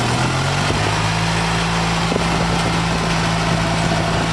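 Vehicle engine running steadily while driving slowly, its pitch rising under a second in as it picks up speed, then holding even.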